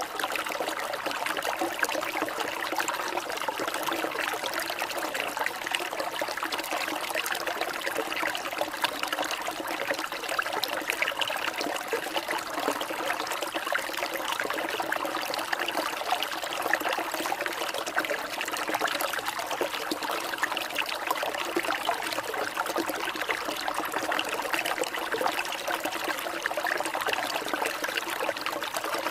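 Steady trickling, babbling water like a small stream, an even flow that does not change.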